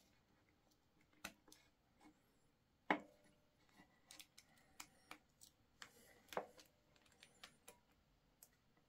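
Faint, scattered clicks and taps of a small screwdriver and a plastic E27 bulb holder being handled while the wire terminal screws are tightened, with one sharper tap about three seconds in.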